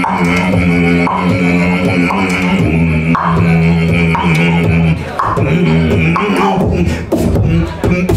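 Nose beatboxing by one performer: a steady hummed drone sung through the nose, with percussive clicks and pops layered over it. The drone drops lower about two and a half seconds in and breaks off briefly a few times near the end.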